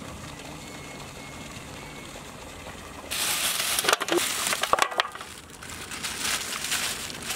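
Raw mutton pieces being tipped from a plastic bag onto a steel tray: plastic crinkling with wet crushing and crackling, starting suddenly about three seconds in after faint background. The sound is loudest with sharp clicks over the next two seconds, then settles to quieter crackling.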